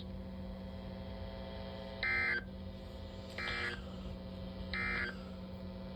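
Emergency Alert System end-of-message data signal: three short buzzy digital bursts about 1.4 s apart, marking the end of the warning message. A steady low hum runs under them.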